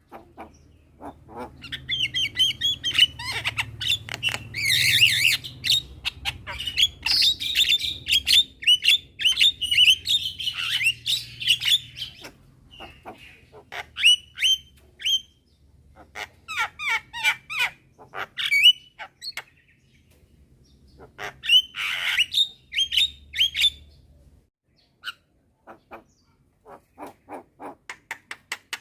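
Javan mynas calling: rapid harsh squawks and short whistles, a busy overlapping chatter for the first half. After that come scattered bursts, and near the end a quick run of clipped, evenly repeated calls.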